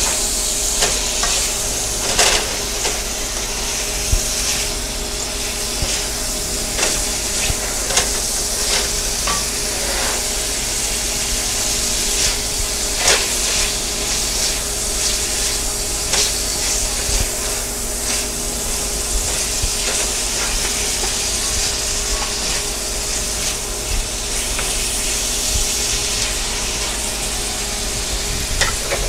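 Beef strips sizzling in a nonstick frying pan, a steady frying hiss, while a wooden spoon stirs and scrapes them, with irregular clicks and knocks of the spoon against the pan.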